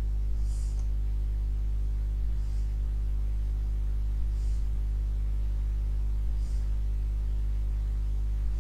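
Steady low hum with a faint, soft high tick or rustle about every two seconds.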